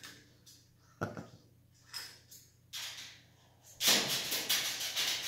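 Hanging plastic-and-chain parrot toy clicking as an eclectus parrot works at it: a few light clicks, then from about four seconds in a louder, dense rattling.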